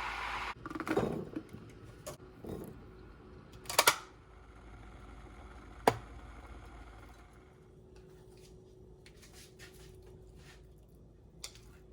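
A steady hiss cuts off about half a second in, then a few scattered knocks and clicks follow. The loudest come near one and four seconds in, with a sharp single click near six seconds.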